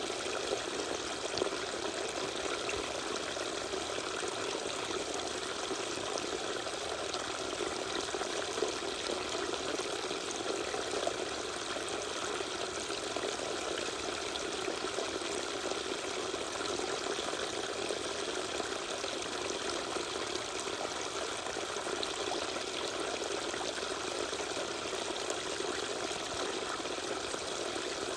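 Small waterfall with water pouring and splashing steadily and evenly, without a break.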